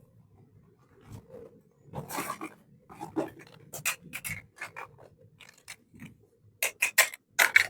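Small toy kitchen pieces being handled and set down: a short rustle about two seconds in, then a run of sharp clicks and taps, loudest near the end.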